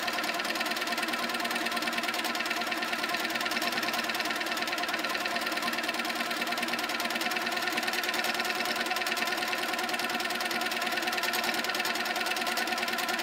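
HQ Sweet Sixteen sit-down longarm quilting machine running steadily, free-motion stitching through the quilt layers: a steady motor hum with a rapid, even rhythm of needle strokes.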